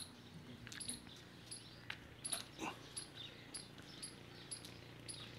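Faint animal chirping: short, very high chirps repeating about two or three times a second.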